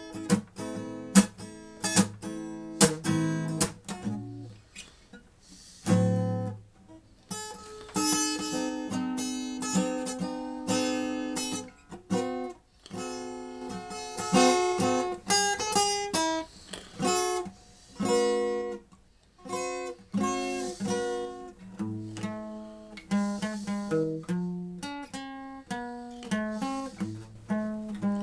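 Instrumental acoustic guitar music: plucked notes and chords that ring and die away one after another.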